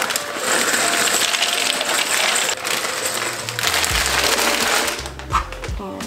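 Dry penne pasta poured from a box into a pot of boiling water: a dense rattling patter that stops about three and a half seconds in. Background music with a bass line plays underneath and carries on after.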